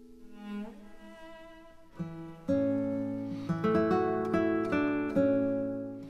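Background guitar music: plucked notes and chords that fill out and grow louder from about two and a half seconds in.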